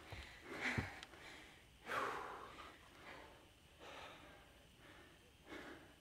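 A hiker breathing hard from the effort of a steep climb, four loud breaths roughly every one and a half seconds, the second the loudest.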